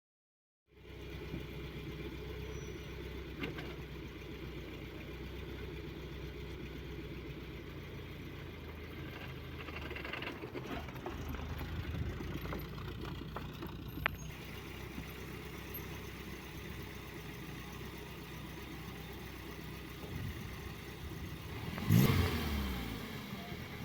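Vehicle engine running with a steady low drone, as when driving, with a few light clicks and a louder swell with a sweeping pitch near the end.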